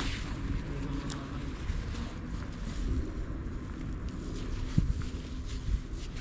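Steady low outdoor rumble with wind buffeting the microphone, and two soft thumps near the end.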